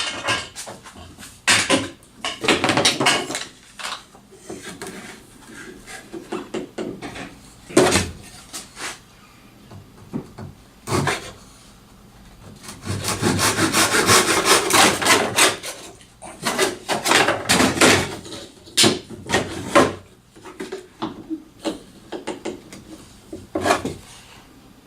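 Scrap wood being scraped and rubbed by hand in irregular strokes, with a few sharp knocks; the scraping is thickest in two runs in the second half.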